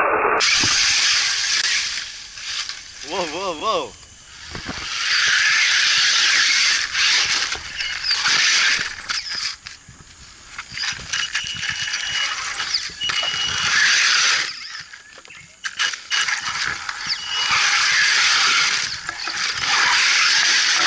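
Axial Yeti RC truck's electric motor and geared drivetrain whirring and ratcheting in stretches of a few seconds as it drives over dirt and roots, with quieter pauses between runs.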